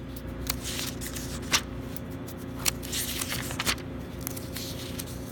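Paper notebook being handled and its pages turned: rustling with a few sharp clicks, over a steady low hum.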